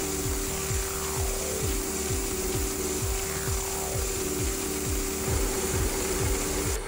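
Air-blown fibre installation running: the fibre-blowing head and its compressed-air feed give a steady hum and hiss with a fast repeating low pulse, as a micro fibre bundle is drawn off its drum and fired into the microduct.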